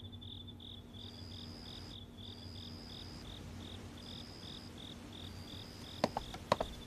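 Crickets chirping: a steady pulsed chirp about three times a second, with longer high trills breaking in now and then. A few sharp knocks near the end.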